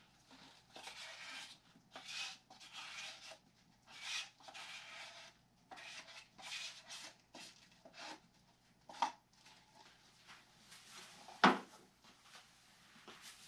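Repeated rubbing strokes, each half a second to a second long, from carbon-fibre cloth being worked down by hand into wet epoxy in a mould. A sharp knock near the end is the loudest sound, with a smaller tap a little before it.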